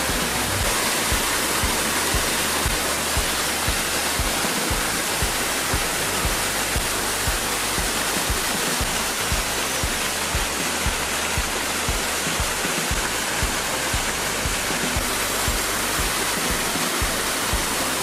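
Small waterfall on a burn pouring over rocks into a shallow pool, a steady rushing of water with irregular low thumps underneath.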